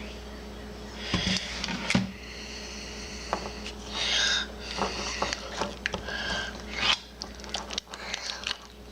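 Sticky homemade slime being stirred in a bowl: scattered wet squelches and smacks with sharp clicks against the container, coming in short irregular bursts.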